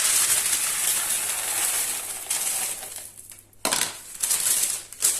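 Baking beans being poured onto greaseproof paper in a pastry case, rattling and clattering for about three seconds, then a short pause and a second pour.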